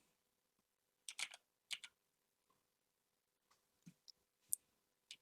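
A few faint, scattered computer keyboard clicks in near silence.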